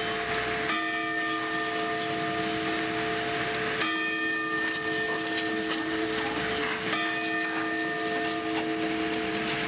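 Sapporo Clock Tower bell striking six for the 6 a.m. time signal, one stroke about every three seconds, each ringing on into the next; three strokes fall here. It is heard through AM mediumwave radio reception, with steady hiss and a muffled top end.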